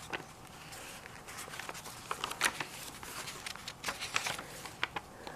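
Pages of a handmade junk journal being turned and handled: soft paper rustling with scattered light clicks and taps, a few sharper ones in the second half.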